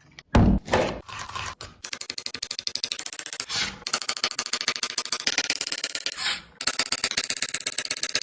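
Rapid, even knife chopping on a cutting board, about ten strokes a second, with a few heavier thuds in the first second.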